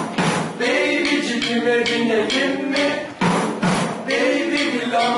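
Live music from an amateur band, a song with voices singing over repeated drum strikes. Acoustic guitar, keyboard and hand-struck drums are the band's instruments.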